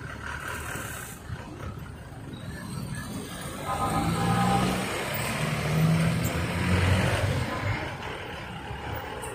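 Motorcycle engines running in light street traffic, swelling for a few seconds in the middle as a motorcycle draws alongside.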